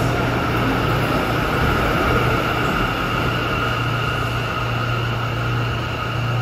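Subway train running into an underground station: a steady rumble of wheels on rail with a high, steady whine above it.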